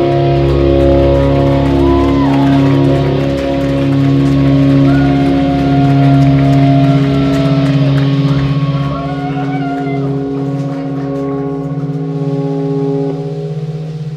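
Live rock band's amplified electric guitars holding long, ringing sustained chords, with a few wavering higher tones over them. The sound gets somewhat quieter in the second half and stops abruptly at the very end.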